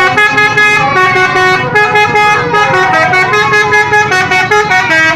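Telolet bus horn, a multi-tone musical horn, playing a loud melody of short stepped notes, several tones sounding together.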